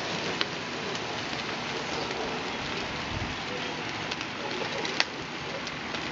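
Meat sizzling on a barbecue grill: a steady hiss with scattered small pops and one sharp click about five seconds in.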